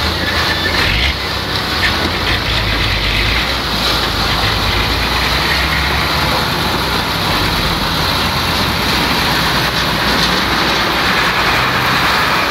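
Loaded cargo truck's diesel engine running steadily at low speed as the truck creeps and turns through a tight gateway.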